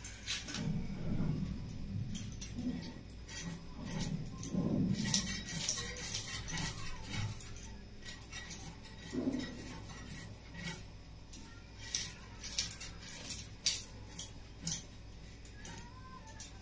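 Fish scales being scraped off against the upright blade of a boti: a run of quick, irregular scrapes and clicks as the fish is drawn over the edge stroke after stroke.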